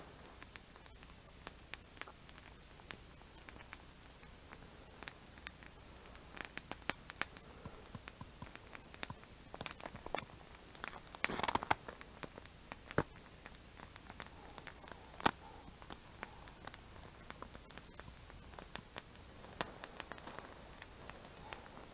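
Small wood campfire crackling: scattered sharp pops and snaps at an irregular pace, a little busier about halfway through.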